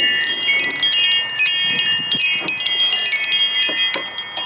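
Wind chime ringing, struck again and again so that many high tones overlap and ring on.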